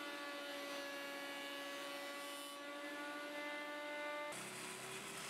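Benchtop jointer-planer combination machine running with a steady motor whine as a beech board is passed over the cutterhead to flatten one face. A little past four seconds in, the pitch steps up slightly and a hiss joins.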